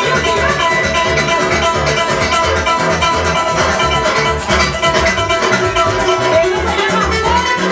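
Live Venezuelan llanero band playing an instrumental passage: concert harp and cuatro strumming and plucking over an electric bass line that pulses steadily, with maracas shaking a fast, even rhythm.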